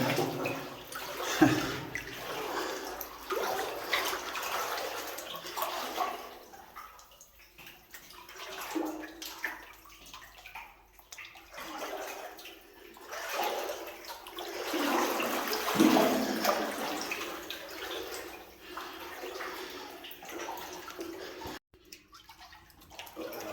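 Deep water sloshing and splashing around a person's legs as they wade slowly through a flooded mine tunnel, in uneven surges with short lulls between steps.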